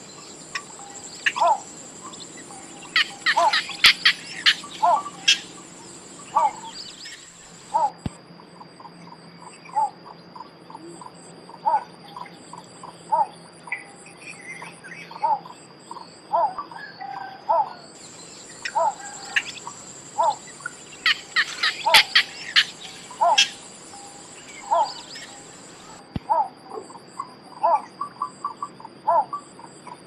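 Small bittern calling: short notes repeated about once a second, with two bursts of rapid, sharp clicking calls a few seconds in and again past the middle. A steady high insect drone runs underneath.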